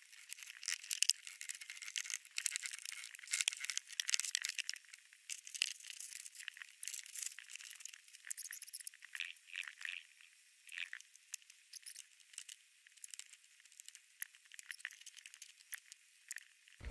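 Drywall being cut and pulled off a wall stud frame: a dense, uneven run of thin crackling clicks and rattles with no low end.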